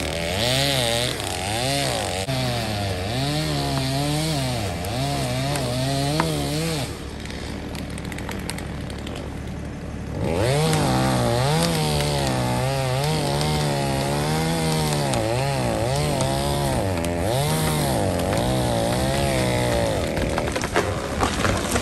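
Stihl MS 250 45cc two-stroke chainsaw running under load in wood, its engine pitch rising and falling as the cut bogs it down and it recovers. About seven seconds in it drops quieter for some three seconds, then revs back up and keeps cutting.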